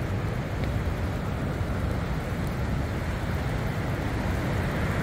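Ocean surf breaking on a beach: a steady roar, with a low wind rumble on the microphone.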